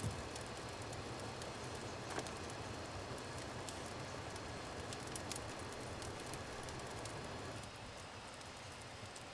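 Steady outdoor background hiss with a low rumble and sparse light ticks scattered throughout, plus a brief knock about two seconds in.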